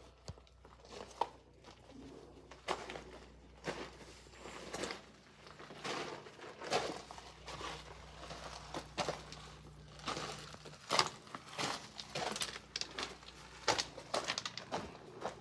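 Footsteps crunching on gravel, slow and uneven, about one step a second.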